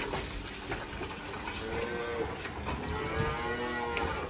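Cattle mooing: two drawn-out calls, a shorter one about a second and a half in and a longer one from about two and a half seconds.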